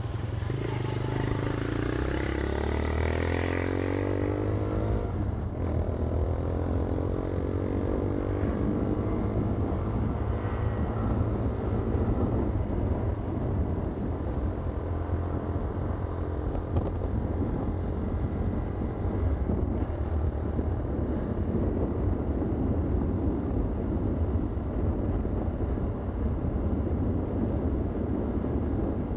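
Motorcycle engine running under way, its pitch climbing as it accelerates, with a break about five seconds in as it shifts gear and a second climb. It then runs steadily at speed.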